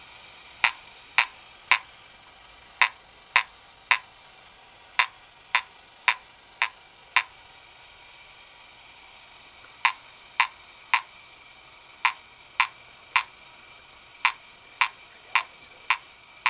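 Simplex fire alarm horn powered from a 6-volt battery, sounding short blasts in the coded pattern of an old Edwards coded pull station: three, three, five, a pause of about two seconds, then three, three, five again. The grouped blasts are the pull station's 3-3-5 code.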